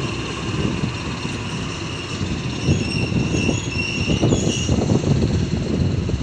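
Waratah electric double-deck train pulling out of the platform close by: rumble of wheels on rail with a steady electric whine, getting louder about halfway through as higher whining tones join in.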